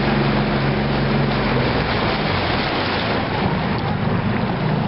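Small patrol boat's motor running under way, with water and wind rushing past. The steady low engine hum fades about two seconds in, leaving mostly the rush of water and wind.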